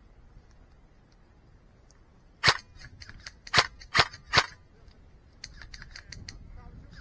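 Airsoft gun shots: four sharp cracks, one and then three in quick succession about half a second apart, followed a second later by a run of fainter clicks.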